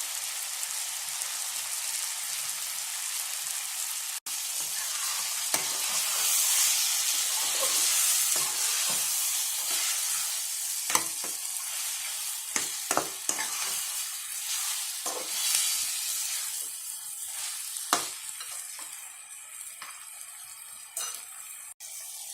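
Chicken pieces frying and sizzling in a pan of oil with onions and tomatoes, stirred with a spoon that knocks and scrapes against the pan a dozen or so times. The sizzle is loudest a few seconds in and dies down near the end.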